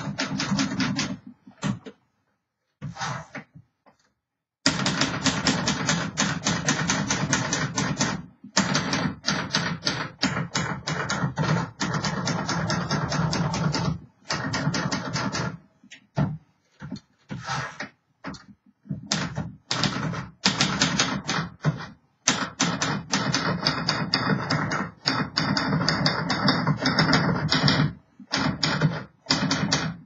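1956 Royal Aristocrat manual portable typewriter being typed on: several runs of rapid key strikes, typebars clacking against the platen, with short pauses between the runs.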